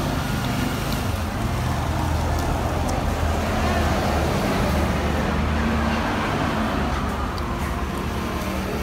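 Steady rumble of road traffic, swelling and fading once around the middle as a vehicle passes.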